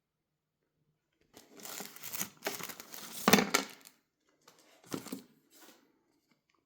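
Packaging being handled while unboxing an espresso machine: several seconds of crinkling and tearing, then two shorter rustles near the end.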